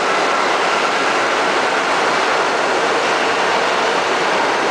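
New York City subway train passing through the station: a loud, steady rushing noise of wheels on rail that does not let up.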